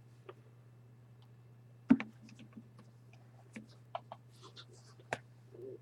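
Scattered light clicks and taps, the sharpest about two seconds in and another near five seconds, over a steady low hum.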